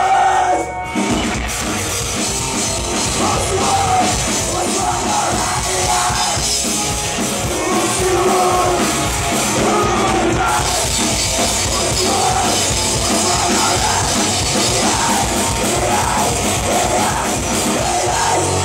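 Live rock band playing: electric guitars, bass and drum kit, with a singer yelling the vocals over them.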